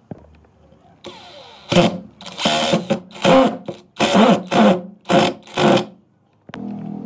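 Rhythmic strokes of a hand tool working wood: about seven loud scraping strokes, each under half a second, with a ringing pitch that bends during each stroke. Near the end a steady hum starts up.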